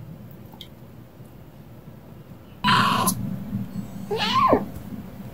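A low steady hum, then a sudden noisy burst a little under three seconds in, and about four seconds in a kitten gives one short cry that rises and falls in pitch while play-fighting.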